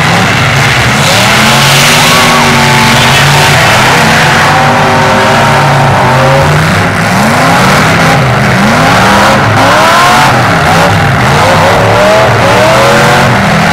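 Several demolition derby cars' engines revving hard at once, their pitches rising and falling over one another, loud throughout.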